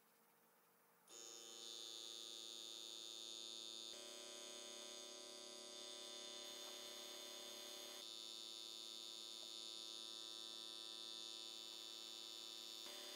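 An airbrush compressor's small electric motor starts about a second in and runs with a steady hum. Near the end the hiss of the airbrush spraying joins it.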